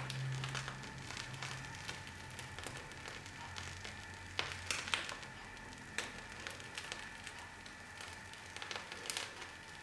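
Plastic piping bag of whipped cream being squeezed: faint crackles and a few soft ticks over quiet room tone, with a weak low hum that fades out about halfway through.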